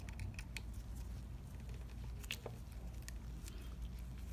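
Faint, scattered small clicks and taps of metal Allen keys against the scooter's handlebar joint mechanism as gloved hands adjust the spring screws, over a steady low hum.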